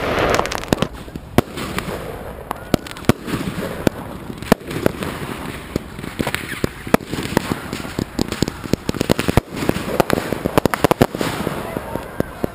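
Consumer fireworks and firecrackers going off all around in a quick, irregular string of pops and bangs, several a second, some much louder than others.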